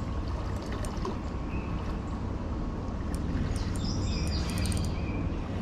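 Steady outdoor noise of flowing creek water and wind on the microphone, with a few short bird chirps between about three and a half and five seconds in.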